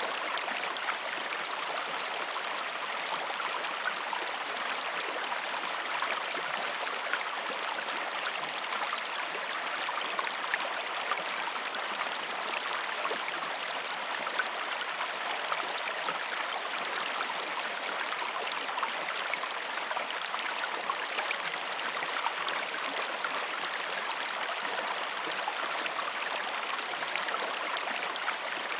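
River water flowing steadily over stones: a constant rushing with many small splashes and gurgles.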